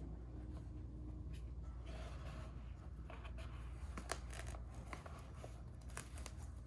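Soft rustling and scattered small sharp clicks from hands handling a watch box and its packaging, over a low steady hum.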